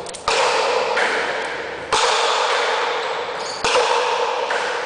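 Sharp cracks of a pelota paleta ball struck in a rally, three hits about every second and a half, each followed by a noisy ring-out.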